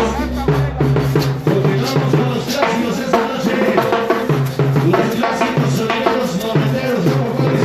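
Live band playing Latin dance music, with drums and percussion to the fore over bass and melody.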